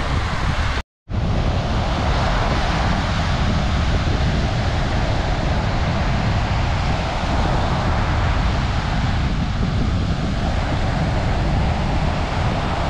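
Wind buffeting the microphone over the steady wash of sea surf. The sound cuts out completely for a moment about a second in.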